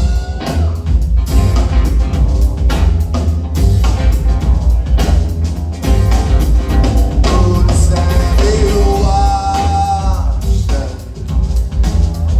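Live band playing a rock song with heavy bass, drums and sung vocals, the singing clearest in the second half.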